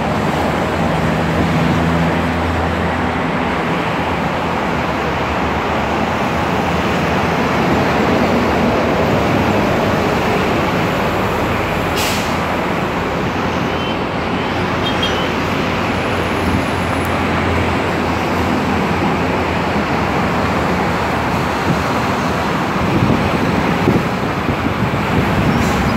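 Steady city road traffic noise, a continuous rumble and hiss without pauses.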